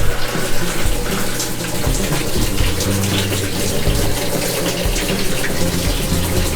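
Water pouring into the tub of a Whirlpool top-load washing machine as it fills at the start of a normal cycle, a steady rushing that starts abruptly, with background music underneath.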